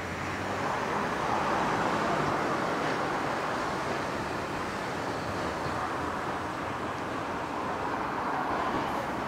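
Road traffic: a car driving past, with a steady hiss of tyres on the road.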